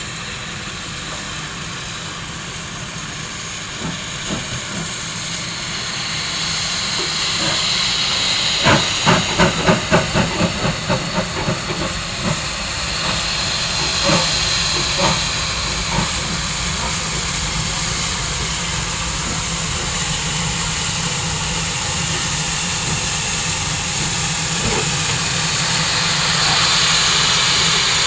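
Steam locomotives, a Class 15CA and a Class 25NC double-heading, hissing steam steadily. The hiss grows louder. About nine seconds in comes a quick run of exhaust beats, about five a second, that fades within a few seconds, followed by a few single beats.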